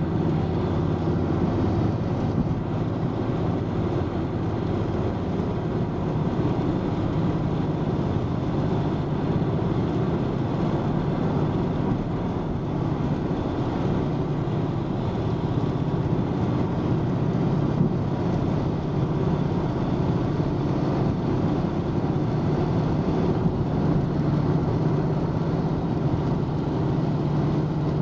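Steady rumble of a car driving at highway speed, heard from inside the cabin: tyre and engine noise running evenly, with no separate events.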